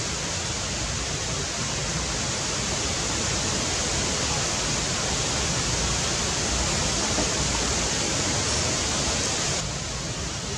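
Steady rain falling, an even hiss with no break; it turns a little quieter and duller near the end.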